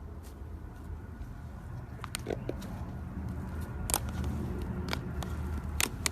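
Slime being handled and pressed, giving scattered small clicks and crackling pops, a few at a time, over a low steady hum.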